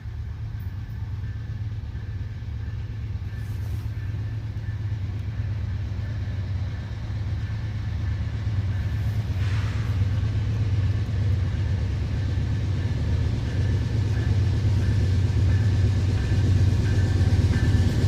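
Diesel locomotive of an approaching freight train, a CN AC44C6M in the lead, its deep engine rumble growing steadily louder.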